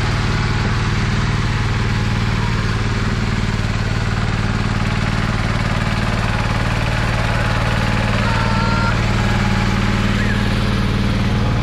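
Small engine of a walk-behind power tiller running steadily at constant speed.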